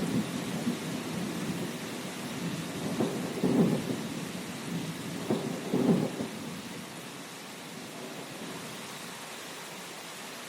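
Steady rain with rolling thunder. Rumbles swell near the start, at about three and a half seconds and at about six seconds, then die away in the second half, leaving the rain hiss.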